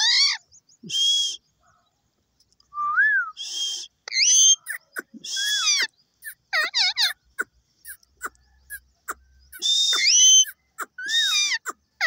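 Caged ring-necked parakeet calling over and over: short harsh screeches mixed with wavering, whistle-like squawks, each lasting well under a second, with brief pauses between them.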